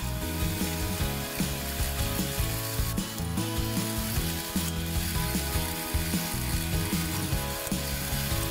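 A milling machine running an end mill that cuts the side of a small cold-rolled steel block. It makes a steady mechanical whir with a repeating clatter a few times a second.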